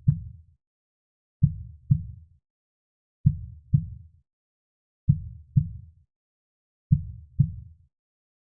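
Slow heartbeat: evenly repeating pairs of low thumps (lub-dub), one pair a little under every two seconds, with silence between the pairs.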